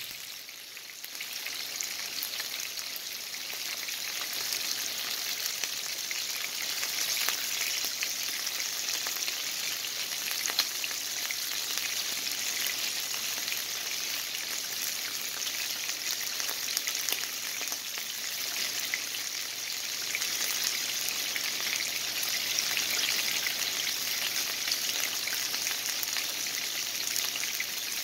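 Pork steaks frying in oil in a nonstick pan: a steady sizzling hiss with fine crackling pops throughout.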